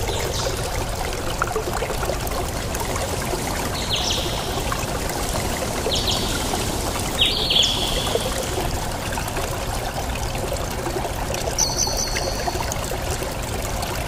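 Steady rushing noise, water-like, from the outdoor surroundings, with a few short high bird chirps about four, six, seven and twelve seconds in.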